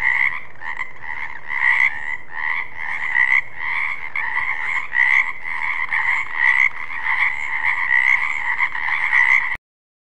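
Frog croaking in a steady run of repeated calls, about two to three a second, that cuts off suddenly near the end.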